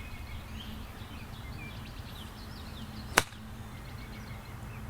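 A 7 iron striking a golf ball in a short bump-and-run shot: one sharp click about three seconds in. Wind rumbles steadily on the microphone and birds chirp faintly.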